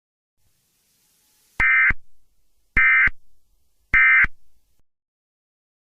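Three short bursts of Emergency Alert System end-of-message data tones, each about a third of a second long and spaced a little over a second apart, beginning a second and a half in. They signal the end of the alert.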